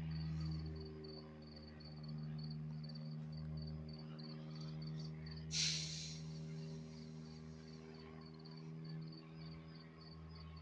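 Crickets chirping in a fast, even rhythm over a steady low hum. A brief hissing swish cuts across about halfway through.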